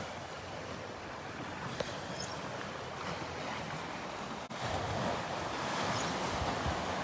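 Small lake waves washing on the shore, with some wind; the wash grows a little louder about halfway through.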